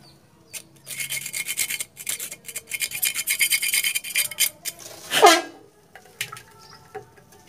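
A screwdriver tip scraping and rasping over the rusted steel of a jet pump pressure tank's cover, in two runs of fast strokes, at the rust-cracked spot that lets the tank leak. A short falling squeal about five seconds in is the loudest sound, followed by a few light clicks.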